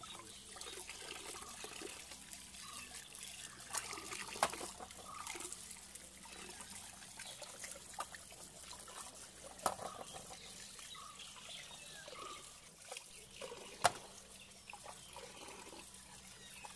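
Water trickling and splashing as cleaned pearl spot fish are washed by hand, with a few sharp knocks, the loudest about four and a half, ten and fourteen seconds in.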